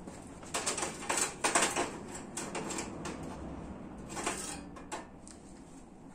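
Irregular clicks and light rattles of hard objects being handled. They come in a cluster from about half a second to two seconds in, and again a little after four seconds.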